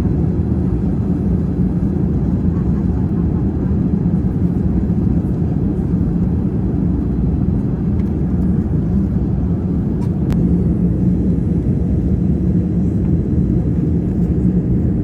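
Steady airliner cabin noise inside a Boeing 787-10 during descent: an even, low rush of airflow and engine hum that doesn't change.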